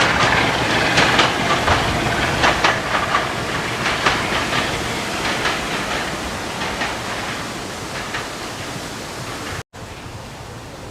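Diesel-hauled train passing, its wheels clicking irregularly over the rail joints as the sound fades away. About a second before the end it cuts abruptly to a quieter, steady hiss.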